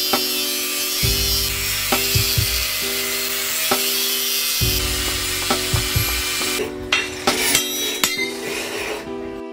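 Angle grinder with a cutting disc slicing through a rusty steel bar, a steady high grinding hiss that stops about two-thirds of the way through. Then a handful of sharp hammer blows ring on the steel bar on an anvil. Background music with sustained notes plays underneath.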